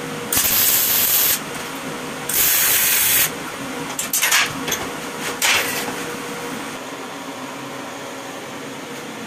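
Arc welding on steel profile pipe in short bursts: two welds of about a second each, then a few shorter ones, each a loud hiss over a steady background hum.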